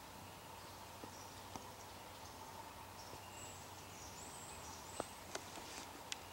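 Quiet woodland ambience with faint, high-pitched bird chirps around the middle, then a few sharp clicks or snaps near the end.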